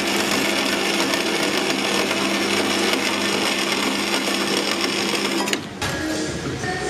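Horizontal metal-cutting band saw running and cutting through flat steel bar: a steady motor hum under the rasp of the blade. It stops about five and a half seconds in.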